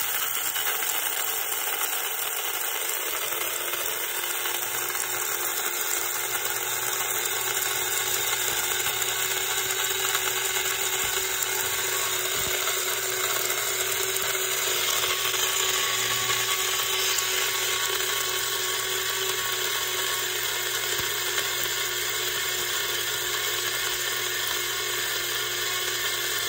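Small electric blade grinder running continuously while grinding dry wheat berries into flour: a steady high motor whine over grainy grinding noise. Its pitch climbs slightly in the first couple of seconds as it comes up to speed, then holds steady.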